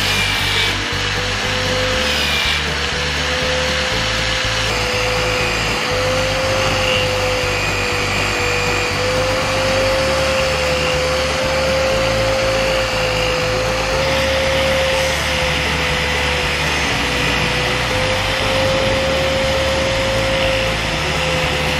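Electric power tool spinning a polishing pad against a steel blade, its motor whining at a steady, slightly wavering pitch over a rubbing hiss. Background music with a steady bass line plays underneath.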